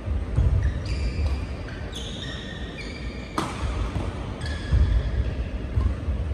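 Sounds of a badminton match in a large indoor hall: repeated short squeaks of court shoes on the synthetic court mat and low thuds of footwork. There is one sharp smack of a racket hitting the shuttlecock about three and a half seconds in.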